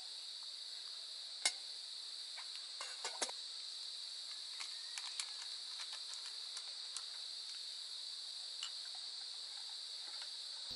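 Steady high-pitched chorus of insects, with scattered light clicks and taps over it, the sharpest about a second and a half in and a small cluster about three seconds in.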